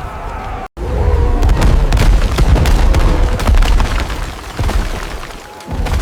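Cinematic battle sound effects: a loud run of deep booms and crashes, starting suddenly after a brief dropout under a second in and dying away near the end, over background music.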